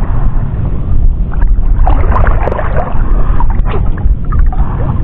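Wind buffeting an action-camera microphone, a loud steady low rumble, with irregular splashing of choppy water and small knocks from about one and a half to four seconds in.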